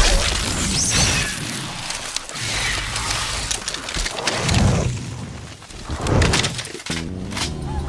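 Film sound effects of a body burning up and disintegrating into showering embers: a loud, noisy crackling and shattering rush, with low booms about halfway through and again near six seconds.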